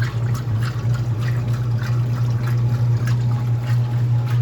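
1979 GE Hotpoint washing machine running: water splashing and trickling in the tub over a steady low hum.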